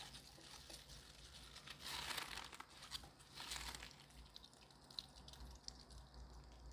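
Faint crinkling and squishing of plastic-gloved hands squeezing water out of blanched cabbage, in a few soft bursts.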